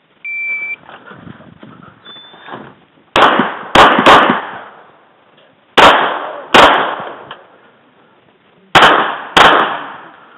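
A shot timer's start beep, then seven pistol shots from a stock service pistol in three quick strings: three, then two, then two, each shot trailed by reverberation.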